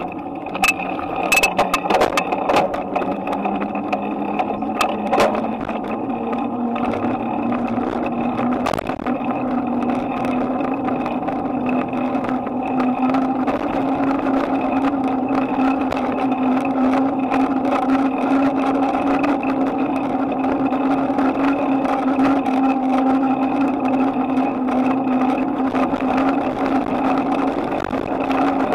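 Bicycle rolling on pavement, heard through a handlebar-mounted camera: a steady hum that rises slowly in pitch as the ride goes on, with a few sharp clicks and knocks in the first several seconds.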